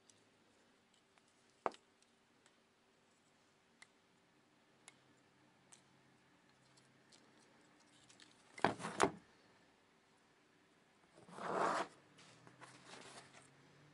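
Plastic handling sounds from an Eachine QX90C micro quadcopter and its propellers being worked by hand. A sharp click comes near the start and a few faint ticks follow. Two short scratchy rasps come in the second half, the later one followed by softer rustling.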